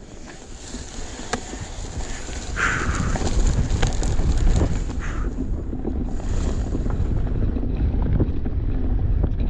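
Wind rushing over the microphone and the rumble and rattle of an enduro mountain bike riding down a rough trail, with sharp knocks from the bike over the ground. It gets louder about two and a half seconds in.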